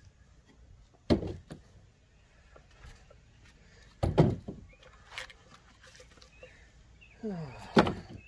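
Cut pieces of oak slab being tossed down one at a time: three loud wooden knocks about three seconds apart, with a few smaller knocks between.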